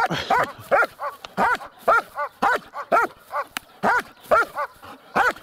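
A shepherd dog barking in quick, excited repetition, about two to three barks a second with a short break midway, as it leaps up at its handler during training.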